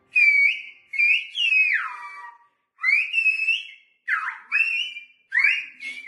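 Silbo Gomero whistled speech: a person whistling a string of short phrases whose pitch glides up and down, broken by brief pauses.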